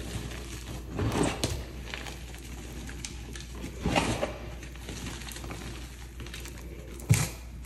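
Soft pasted chalk blocks crumbling and crunching as hands squeeze them into powder: gritty crunches about a second in and again around four seconds, and a sharper crack near the end.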